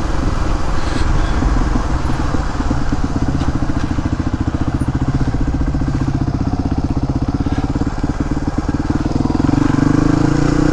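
Suzuki DR250S single-cylinder four-stroke engine running steadily while riding, with a fast, even exhaust pulse. The revs and loudness rise about nine seconds in.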